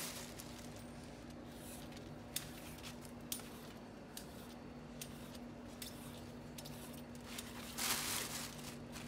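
Light handling noise on a kitchen counter: a few sharp, separate clicks and taps, then a brief rustle near the end, over a steady low hum.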